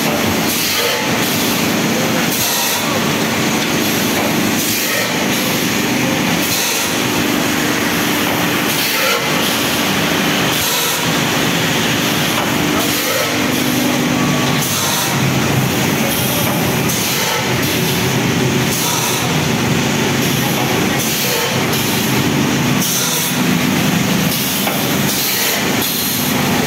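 Egg tray pulp moulding line running: a steady mechanical hum and drone, broken every second or two by short hisses, as of air blowing through the moulds.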